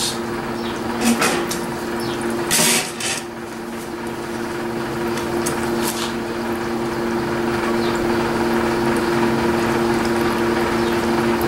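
Gasoline draining out of a riding mower's flooded engine into a container, an even pouring hiss with one short louder rush about two and a half seconds in, over a steady two-tone hum.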